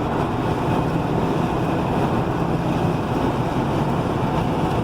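Car's 4.6-litre V8 cruising steadily at highway speed, a constant engine drone under road and wind noise heard from inside the cabin.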